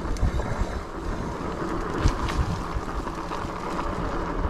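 Wind buffeting the microphone over the low rumble of 26×4-inch fat tyres rolling through mud on a dirt trail, with a couple of sharp clicks from the bike about two seconds in.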